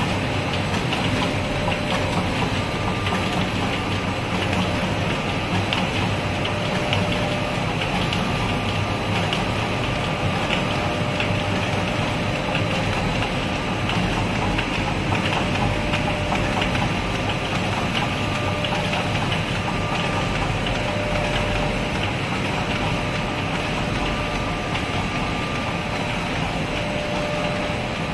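DBZS label finishing machine with hot foil and silkscreen units running steadily: a continuous mechanical hum, with a few faint steady whining tones through it.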